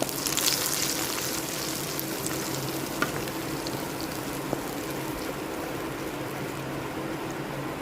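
Ground dal-and-coriander paste sizzling in hot oil with mustard seeds in a pan, cooking on a slow flame. The sizzle is loudest in the first second and then settles to a steady, quieter sizzle.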